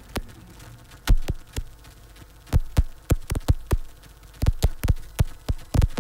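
Sound-design bed of sharp, irregularly spaced clicks and crackles over a low steady hum.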